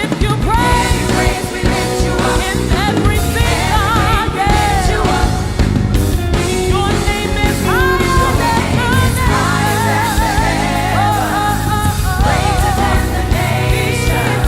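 Live worship band playing, with a vocalist singing wavering, melismatic runs over steady bass and keys.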